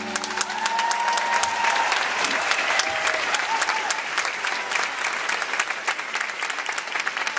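Concert crowd applauding, with some cheering; many individual hand claps stand out through the applause.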